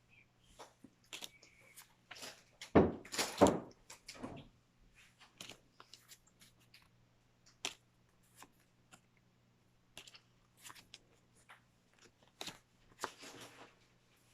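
Pokémon trading cards and their foil booster packs being handled: a string of quick card snaps and rustles, with two louder crinkling bursts about three seconds in.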